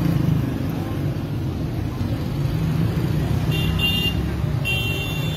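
Street traffic noise with a steady low engine hum, and two short high-pitched vehicle horn toots near the end, the second one longer.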